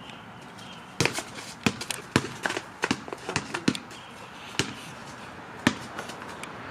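Basketball bouncing: a string of sharp bounces, two or three a second, then two more further apart near the end.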